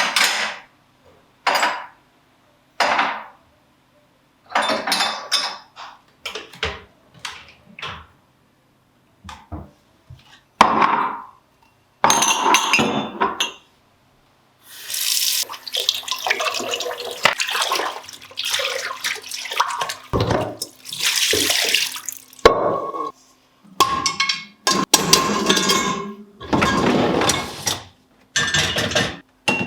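Kitchen tap water running into a sink in a string of short and longer spells, with dishes being handled.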